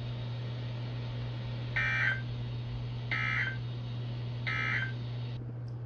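NOAA Weather Radio end-of-message SAME data tones: three short, identical buzzy digital bursts about a second and a half apart, marking the end of the warning broadcast. A steady low hum from the radio runs underneath.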